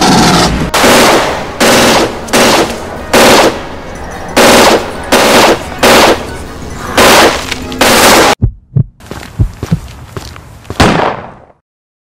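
Gunfire sound effects: about a dozen loud shots, roughly two a second, each with a short tail. After about eight seconds they give way to a sharp crack and a few scattered thuds, which fade out shortly before the end.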